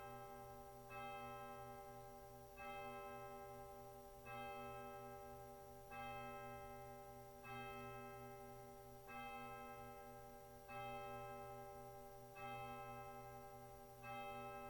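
A single bell tolling at a slow, even pace, struck about every second and a half with each stroke ringing and fading before the next. Nine strokes, all on the same pitch, ring out as a call to worship.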